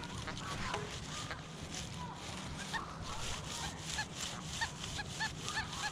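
Metal detector giving a run of short, evenly spaced beeps, about three a second, starting about three seconds in as the coil sweeps back and forth over a target that the detectorist takes for a deep one.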